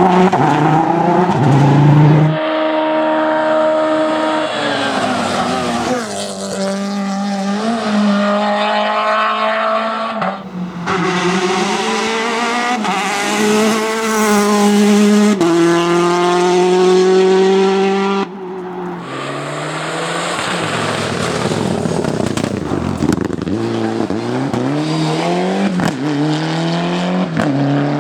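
Rally car engines at high revs on a special stage, the pitch climbing and then dropping sharply at each gear change, several times over.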